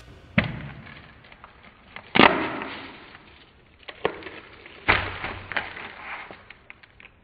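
Handling of a clear plastic capsule and a cellophane-wrapped squishy, with confetti shaken onto a table: sharp plastic clicks and taps, the loudest about half a second, two seconds and five seconds in, each followed by crinkly rustling.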